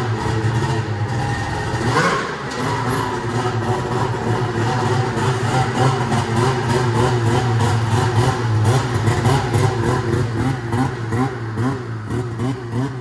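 Two-stroke snowmobile engine running at low speed as the sled is ridden along, the throttle rising and falling in short blips in the second half. A short sharp knock about two seconds in.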